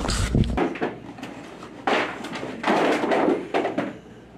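Cardboard boxes being handled and shifted: a few dull knocks and scraping, rustling noises, the longest about three seconds in.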